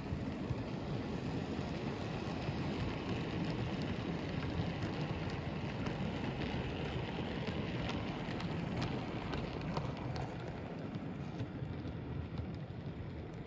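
Model train running on the layout track: the wheels of the locomotive and grain container wagons roll with a steady rattling rumble, with scattered small clicks from the rails.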